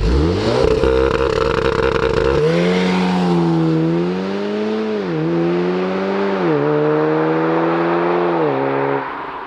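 2019 Audi S3 Sportback's 2.0 TFSI turbocharged four-cylinder engine and exhaust revving. The revs climb quickly at the start and are held high for about two seconds, then drop and rise and fall gently several times.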